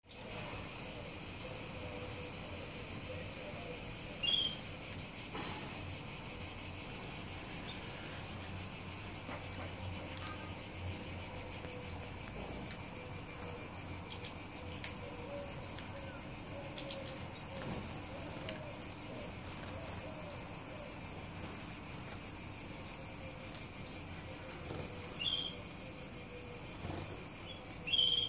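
Steady, high-pitched drone of insects, with three short bird chirps rising above it: one about four seconds in and two near the end.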